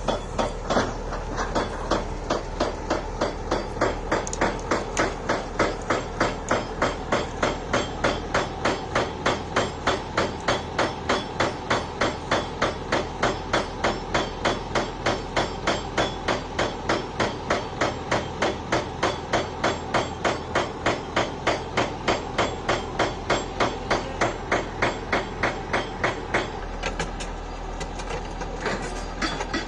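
Rapid, very regular hammering, about two to three blows a second, over a steady low engine hum. The blows stop for a couple of seconds near the end, then start again.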